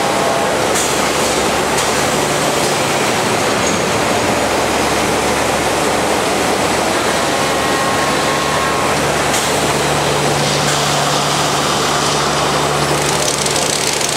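Steady, loud noise of production-line machinery, a constant din with a low steady hum beneath it that grows a little stronger in the second half.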